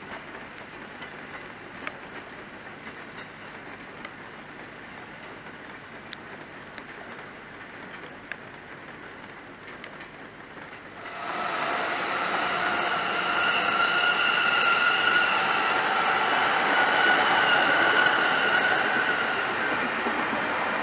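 Faint steady background noise with a few small ticks, then about halfway through a sudden jump to an electric commuter train running past, its rolling noise topped by a steady high whine.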